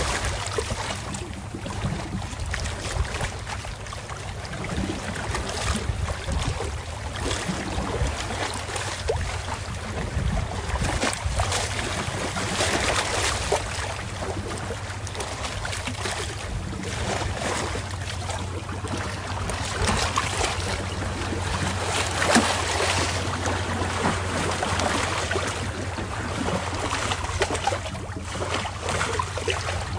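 Wind buffeting the microphone over lapping water and a steady low hum, the gusts rising and falling.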